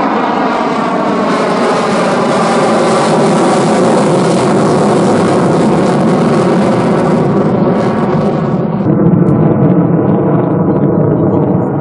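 USAF F-16 fighter jet climbing away in afterburner: a loud, continuous jet roar. Its high hiss fades after about seven seconds, leaving a low rumble as the jet recedes.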